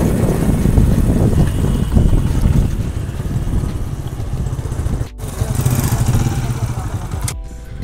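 Motorcycle engine running, heard as a dense low rumble; the sound drops away suddenly near the end.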